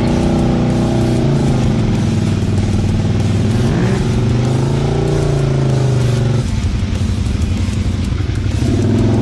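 Can-Am ATV engines running and revving while being driven through a bog, the pitch rising and falling. The sound changes abruptly about six and a half seconds in.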